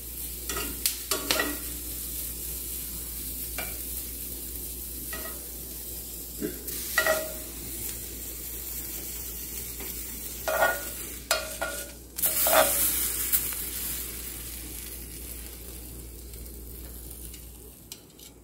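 Vegetable skewers sizzling on a hot ridged grill pan, with a series of sharp clinks and taps as metal tongs knock against the pan and the plate while the skewers are lifted off. The sizzle grows fainter near the end.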